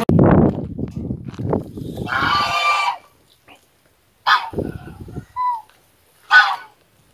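A loud rustling noise, then a goat bleats once for about a second. After a short gap, domestic geese honk three times in short calls.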